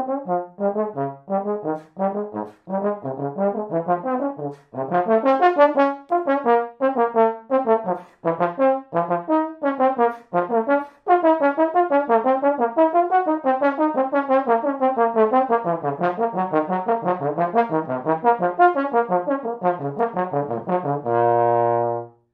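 Tenor trombone playing a lively etude in B-flat minor: quick, separately tongued notes in running lines, with two short breaks. It ends on one long held low note.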